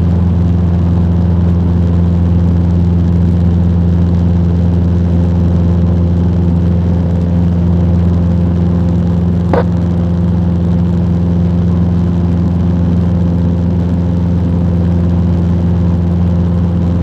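Cessna 150's four-cylinder Continental O-200 engine and propeller droning steadily in cruise flight, with one brief click about halfway through.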